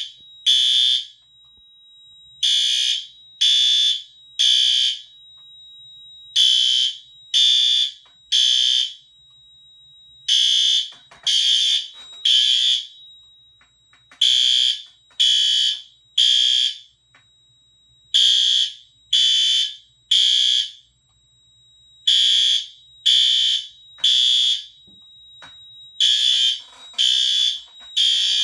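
System Sensor L-series fire alarm horns sounding the temporal-three evacuation pattern: three short horn blasts, a pause, then three again, repeating about every four seconds. This is the alarm set off by testing the smoke detector. A faint steady high tone runs underneath.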